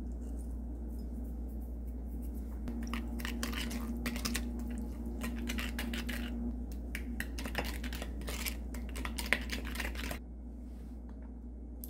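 Wooden spoon stirring thick mayonnaise dressing in a glass bowl: irregular wet scraping and tapping of the spoon against the glass, stopping near the end.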